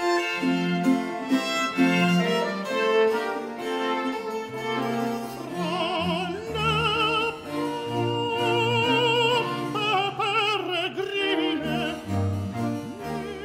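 Baroque opera aria performed live by a countertenor with violin, harpsichord and plucked continuo. The instruments play alone at first, and about five seconds in the countertenor enters, singing with a wide vibrato.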